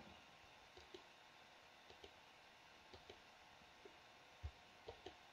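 Faint computer mouse clicks, scattered and irregular, about ten of them with one slightly louder about four and a half seconds in, over near silence.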